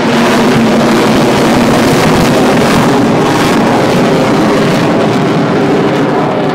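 Loud, steady jet noise from an Avro Vulcan bomber's four Rolls-Royce Olympus turbojets as it flies past overhead.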